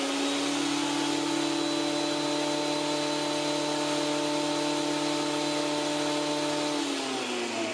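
Small electric planer/thicknesser with freshly fitted blades running with a steady motor whine. Its pitch rises slightly at first, then falls near the end as it is switched off and winds down.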